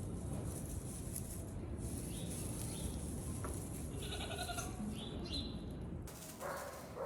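Baby Nigerian Dwarf goats bleating, a few short calls at intervals over a steady low rumble.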